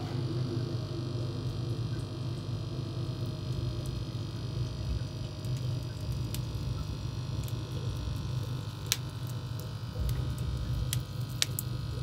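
Wood fire burning in the open firebox of a solid-fuel boiler: a steady low rumble, with three sharp crackling pops in the last few seconds.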